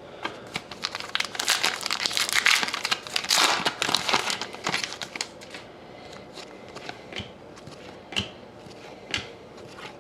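Wrapper of a pack of trading cards crinkling as it is torn open, for about five seconds, then a few light clicks and taps as the cards are handled.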